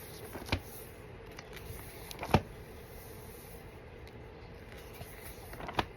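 Thin Bible pages being leafed through by hand, with a few short crisp page flicks, the loudest about two seconds in.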